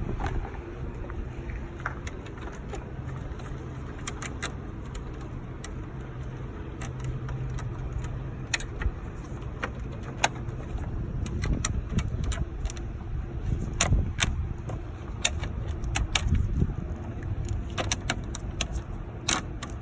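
Metal wrench clinking and clicking against a bolt and bracket as a 10 mm bolt holding the radiator fan assembly is tightened: irregular sharp metallic ticks, more frequent in the second half, over a steady low rumble.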